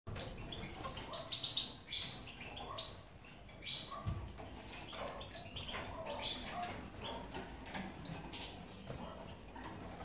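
Caged European goldfinches chirping and twittering, with three louder calls about two, four and six seconds in.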